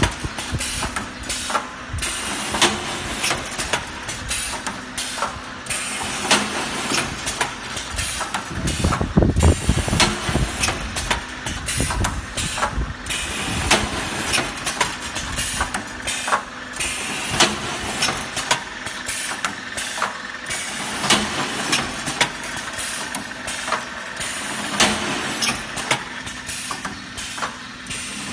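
Automatic brick force wire mesh welding machine running: its pneumatically driven welding heads clack again and again over a steady hum. A heavier low rumble comes about nine seconds in.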